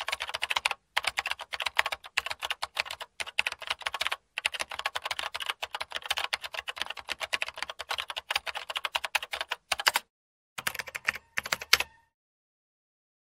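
Rapid key-typing clicks, a typing sound effect laid under text being typed out on screen. It pauses briefly three times and stops shortly before the end.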